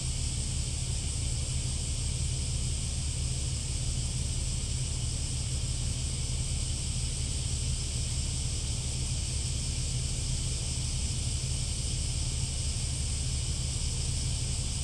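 Steady outdoor ambience: a low wind rumble on the microphone under a constant high-pitched hiss, with no distinct events.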